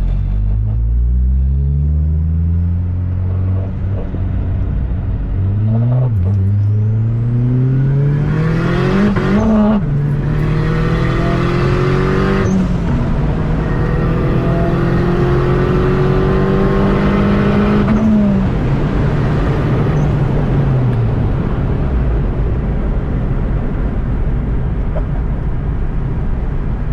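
K24-swapped Honda Civic's four-cylinder engine pulling through the gears: the revs climb, drop at a gear change about six seconds in, climb to another shift around ten seconds, then hold and rise slowly before falling away from about eighteen seconds as the car slows. Road noise runs underneath.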